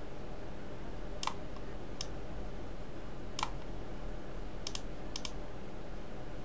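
A handful of sharp computer mouse and keyboard clicks, spaced irregularly, with two quick double clicks near the end, over a steady low hum of background noise.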